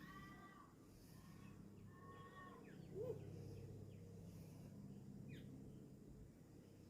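Faint bird calls: a few short chirps, with one louder low call about three seconds in, over a low steady hum.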